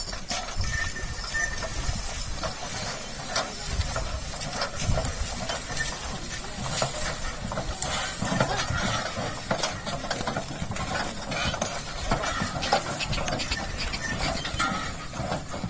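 Bullock cart on the move: a steady low rumble with many scattered knocks and clatters.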